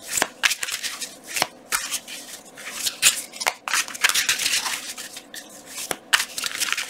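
A deck of tarot cards shuffled by hand: irregular swishes and soft snaps of the cards sliding and knocking together, several a second.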